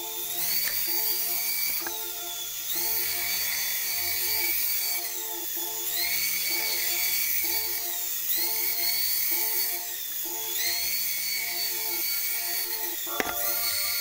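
Background electronic music: a looping synth melody of short repeated chords, with a high line over it that rises and falls every two to three seconds.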